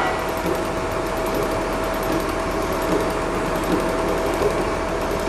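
Steady mechanical hum with one constant high tone held underneath, and a few faint knocks from the large steel sculpture being handled.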